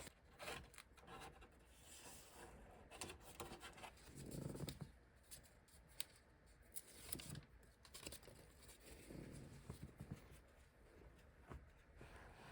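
Faint scratching, rubbing and tearing with scattered small clicks: old foam being picked and pulled off around the radio opening in the dash.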